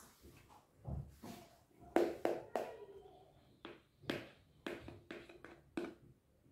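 A metal spoon clicking and scraping against the side of a bowl while ice cream mixture is spooned out: about nine sharp clicks, each with a short ring. A soft thud comes about a second in.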